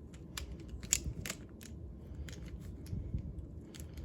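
Plastic 3x3 speed cube pieces clicking and snapping as they are pried out one by one during disassembly: an irregular run of sharp clicks, the loudest about a second in.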